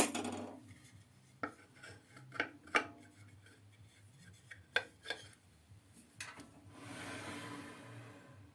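Metal parts clinking and knocking as a workpiece is set up on a lathe, then a soft rubbing, scraping noise that swells for about a second and a half near the end.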